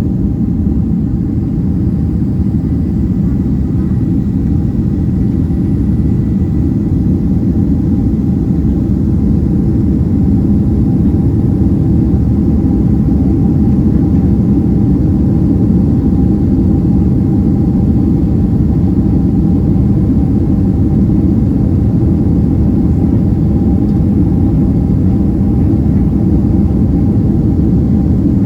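Boeing 767-300ER cabin noise from a passenger seat: a loud, steady rumble of the jet engines and airflow, with a faint steady engine tone above it, swelling slightly about a third of the way in.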